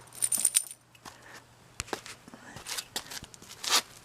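Scattered soft rustling and a few light clicks, with a louder rustle near the end.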